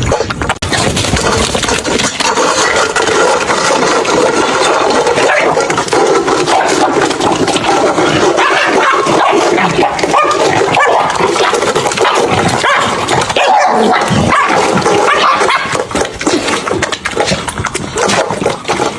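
A puppy and a piglet scuffling over food, making continual animal noises.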